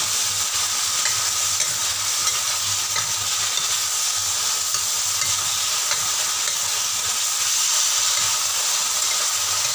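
Minced beef and cucumber stir-frying in a stainless steel wok: a steady sizzling hiss, with a few light scrapes and taps as the spatula turns the food against the metal.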